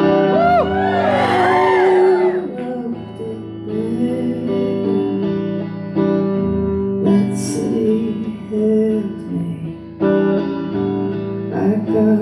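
Live solo performance: a guitar played under a woman's singing voice, with sliding vocal notes in the first couple of seconds.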